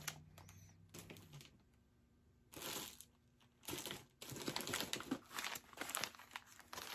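Gift wrap on a small package rustling and crinkling as it is unwrapped by hand. It comes in irregular bursts, with a short pause a couple of seconds in, and runs almost without a break over the last few seconds.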